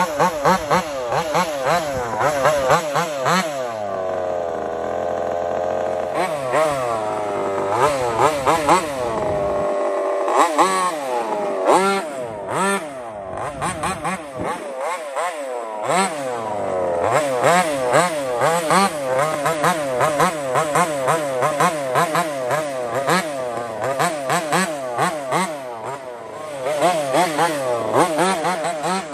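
Taylor RC 35cc two-stroke gas engine of a 1/5-scale MCD XS5 Max RC car revving up and down over and over, its pitch rising and falling with each throttle blip, held steadier for a couple of seconds about four seconds in.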